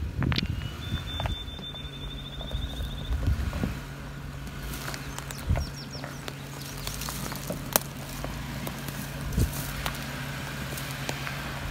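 Jeep Wrangler Rubicon engine running with a steady low hum as the vehicle crawls slowly over rock ledges, with scattered knocks and crunches of the tyres on stone.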